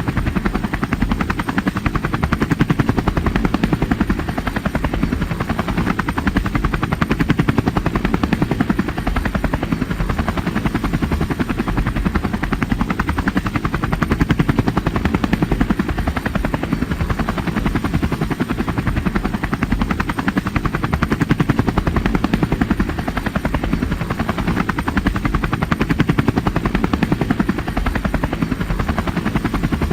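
Helicopter rotor noise: a steady, rapid rhythmic thudding of the blades over the drone of the engine, unchanging throughout.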